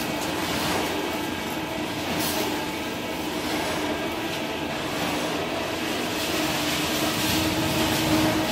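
Electric organic-waste shredder running with a steady motor hum and grinding, chopping the leaves and green waste fed into its hopper into small pieces.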